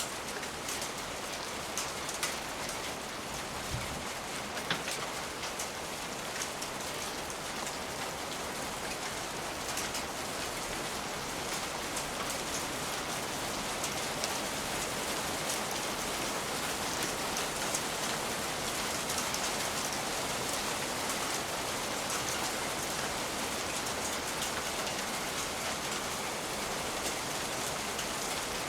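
Steady rain falling on a surface, with scattered sharp crackles and pops from a wood fire throughout.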